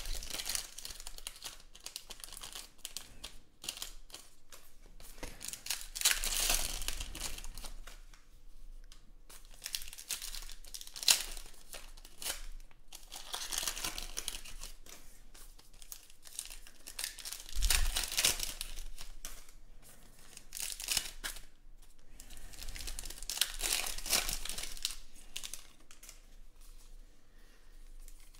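Foil trading-card pack wrappers (2020 Panini Elite Extra Edition baseball) crinkling and tearing as they are ripped open and the cards pulled out, in repeated bursts a few seconds apart, with one sharp snap about eleven seconds in.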